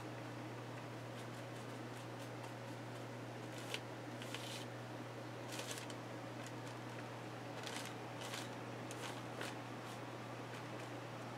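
Faint scratchy strokes of a paintbrush scrubbing black paint across a book page, a handful of short strokes from about four seconds in to near the end, over a steady low hum.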